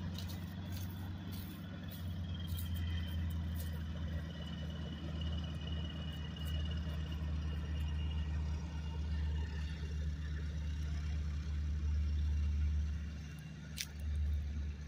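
Boeing PT-17 Stearman biplane's radial engine running at low power with a steady low drone as the plane rolls along the runway after landing.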